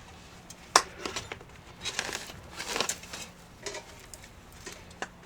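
Handling noise of plastic drip irrigation tubing being worked through a hanging planter basket: a sharp click about a second in, then a string of short rustling and scraping sounds.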